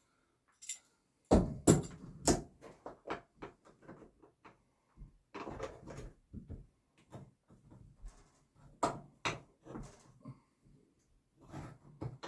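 Irregular knocks, taps and clatter from hands working with tools, screws and lumber, the loudest knocks about a second and a half in and again near nine seconds.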